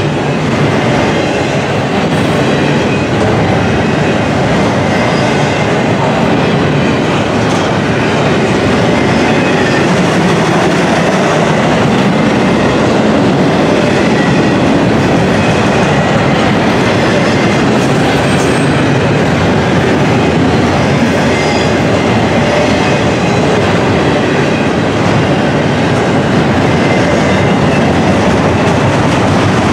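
Double-stack intermodal well cars rolling past close by, a loud, steady rumble of steel wheels on the rails.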